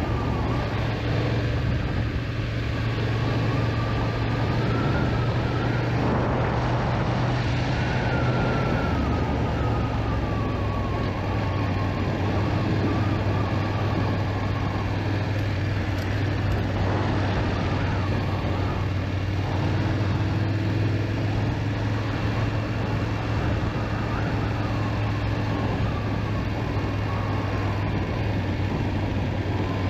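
BMW GS motorcycle engine running steadily at road speed under wind rush. Its note drops a step about nine seconds in.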